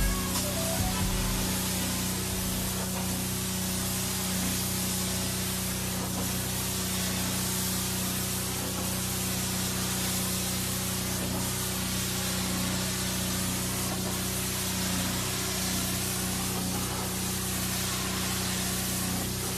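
Pressure washer running: a steady hiss of high-pressure spray over a constant motor hum.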